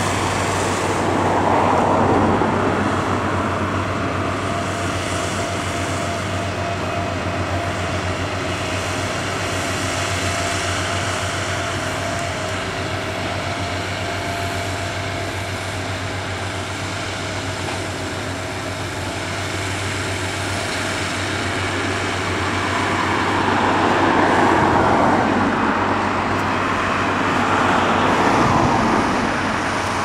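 Engine of a remote-controlled tracked grass mower running steadily as it cuts, a low hum under a rushing noise. The sound swells louder about two seconds in and again near the end.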